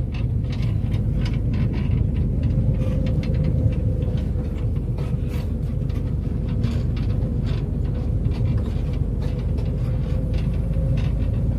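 Heavy farm machinery for silage making running steadily: a low engine rumble with a faint steady whine and many quick rattles.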